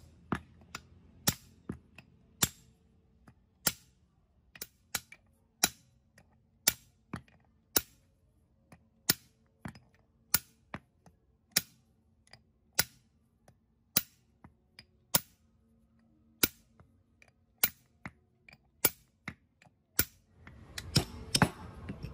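Hammer striking a steel pipe used as a driver to seat a ball bearing onto a bevel gear shaft: sharp metallic knocks about once a second, with lighter taps between.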